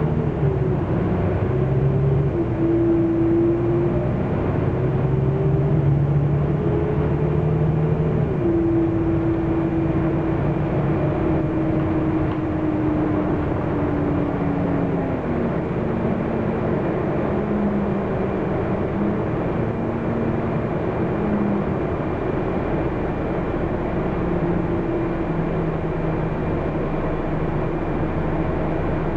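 Renault PR112 city bus's diesel drivetrain heard from inside the cabin, pulling along steadily. Its whining pitch climbs and then drops sharply twice, about eight and fifteen seconds in, as with gear changes, then runs lower and steadier.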